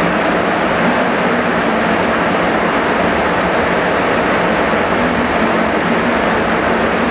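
Heavy rain falling steadily: a dense, even rush of noise with no breaks.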